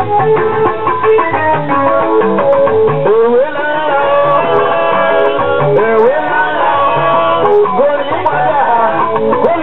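Live band music: guitar lines over a steady drum beat, with long sliding notes from about three seconds in.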